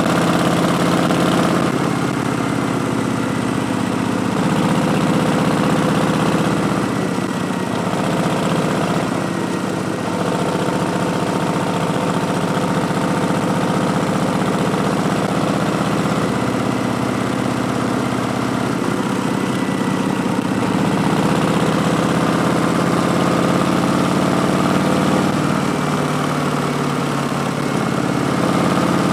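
Harley-Davidson Street Bob's Milwaukee-Eight V-twin running through Vance & Hines Twin Slash slip-on mufflers, its note stepping up and down several times.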